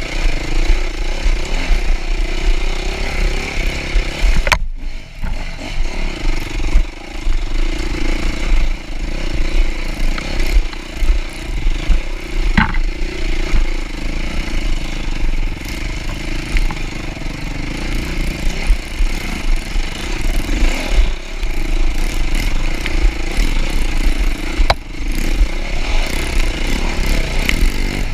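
Yamaha YZ250F dirt bike engine running through a trail ride, its pitch holding fairly steady, with a few sharp knocks and rattles along the way.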